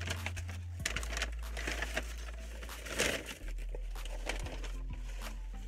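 Paper fast-food bag and burger wrappers crinkling and rustling as hands dig through them, with many quick crackles over a steady low hum.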